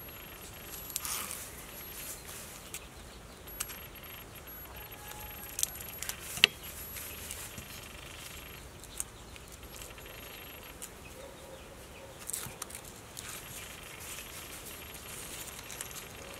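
Palm-leaf wrapper being peeled and torn off a sticky rice cake by hand: quiet crinkling and rustling of the leaf strips with scattered sharp snaps, the loudest about six seconds in.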